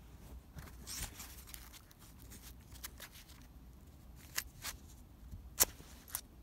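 Handling noise while rummaging: soft rustling of cloth against the microphone, broken by a few sharp clicks, the loudest a little past five seconds in.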